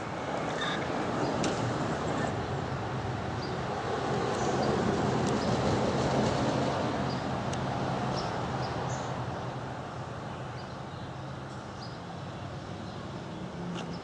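A passing vehicle, its road and engine noise swelling to a peak and then fading away.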